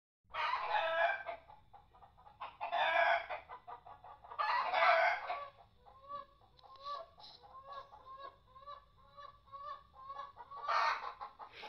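Chickens in the coop: three loud, harsh calls about a second each in the first five seconds, then a run of short, evenly spaced clucks at about three a second, and another loud call near the end.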